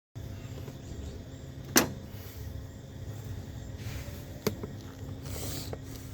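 Hand tools working a corroded car battery cable: two sharp snaps, a loud one about two seconds in and a smaller one a few seconds later, over a low rumble of handling noise, with a brief hiss near the end.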